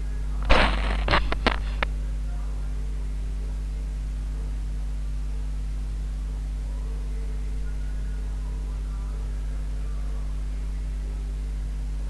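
A steel ladle scrapes and clinks against a steel kadhai of thick frying masala, a short cluster of strokes about half a second in. After that only a steady low electrical hum is heard.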